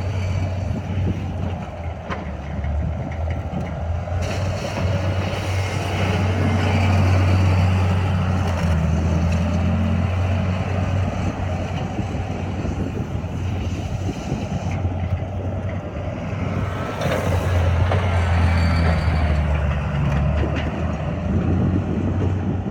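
The diesel engine of a John Deere CT322 compact track loader running, a steady low hum that swells and gets louder twice, as if working under throttle or load, about four seconds in and again near the end.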